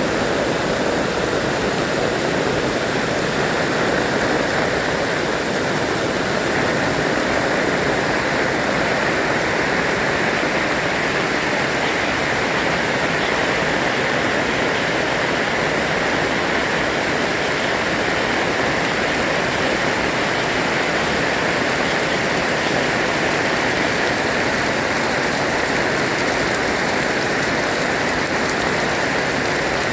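Heavy rain pouring steadily as a dense, even hiss.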